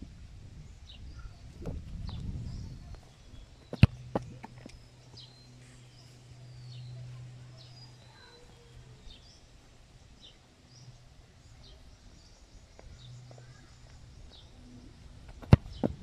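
A football being kicked hard: two sharp thumps about twelve seconds apart, each followed by a smaller knock, with birds chirping throughout.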